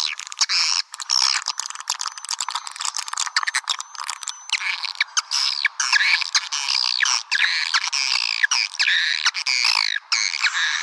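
Swiftlet calls used as a lure sound for swiftlet houses: a dense, continuous chatter of rapid chirps, clicks and downward-sweeping twitters.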